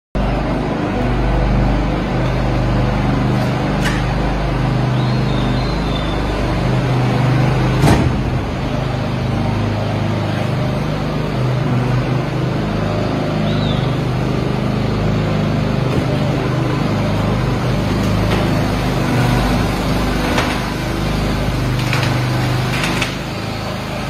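Steady drone of engine-driven concrete equipment running, with a few sharp knocks, the loudest about eight seconds in.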